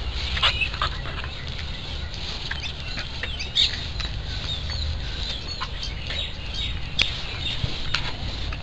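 A dog rummaging and scuffling, with scattered light clicks and crackles, faint bird chirps and a steady low rumble behind.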